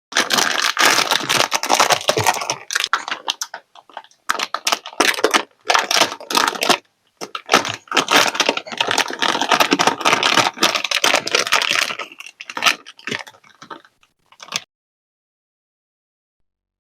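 Close-up crinkling and rustling of plastic packaging being handled and opened, with small clicks and rattles, in irregular bursts that stop suddenly near the end.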